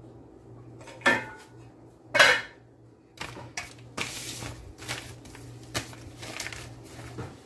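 Aluminium pot lid clanking twice, with a short metallic ring, as it is handled and set onto a cooking pot on a gas stove, followed by a run of lighter clicks and knocks. A low steady hum runs underneath.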